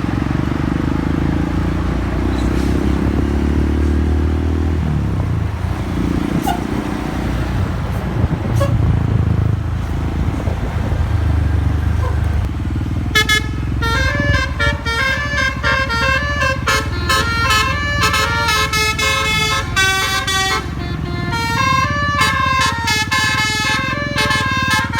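Road-vehicle engine rumble, joined about halfway through by a bus's basuri telolet musical air horn playing a fast, stepping melody of many short horn notes.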